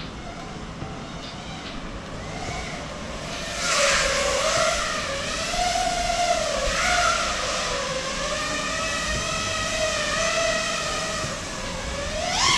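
FPV quadcopter's Emax Eco 2207 2400Kv motors with Gemfan 51433 three-blade props, whining in flight, the pitch rising and falling with throttle. The whine turns much louder about four seconds in, and a quick rising whine comes near the end.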